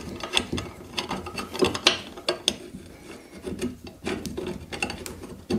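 Metal parts of a saw blade sharpening machine scraping, rubbing and clicking irregularly as its slide carriage is worked and seated onto the mount.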